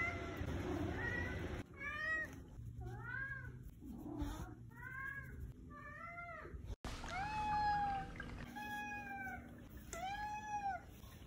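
Domestic tabby cat meowing about seven times in a row, each meow rising then falling in pitch; the last three are longer and more drawn out.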